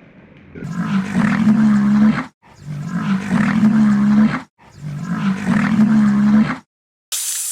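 A large animal's loud, drawn-out roaring call, played three times in a row with short silent gaps between.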